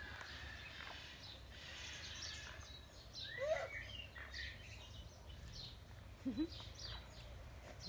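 A young macaque gives a short, shrill, wavering cry about three and a half seconds in, with small birds chirping throughout.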